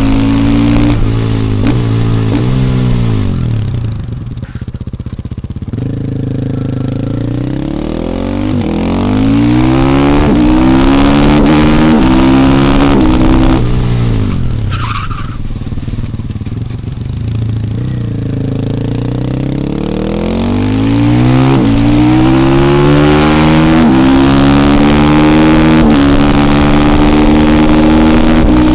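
KTM 450 EXC single-cylinder four-stroke engine on a supermoto under hard acceleration, its pitch climbing and dropping at each upshift. Twice, about 3 seconds in and again about 14 seconds in, it goes off the throttle with revs falling and quieter, then pulls up through the gears again.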